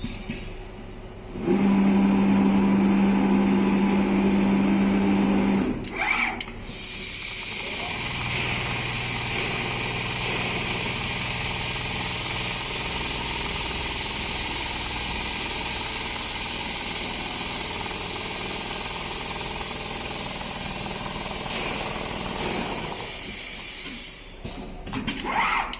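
Automatic large-panel sewing machine running: a loud steady hum for about four seconds, then a long steady hiss with a low hum beneath it, which stops shortly before the end.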